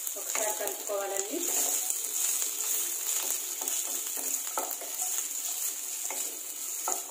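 Carrots, green beans and garlic stir-frying in oil in a stainless steel kadai: a steady sizzle, with a spatula scraping and knocking against the steel as the vegetables are stirred.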